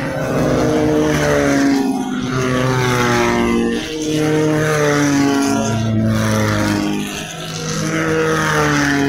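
Dirt-track race cars of the 1600 cc standard class passing one after another with their engines revving hard. The engine pitch shifts in steps every second or so as they change gear.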